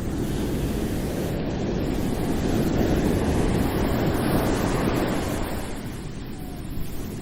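Ocean surf on a beach: a wave breaks and rushes in, building to its loudest about midway, then washes back and fades toward the end.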